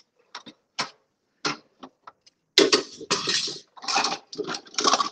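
Kitchen appliance attachments clicking and knocking together as they are packed into one pot: a few separate light clicks, then a louder, busier clatter from about two and a half seconds in.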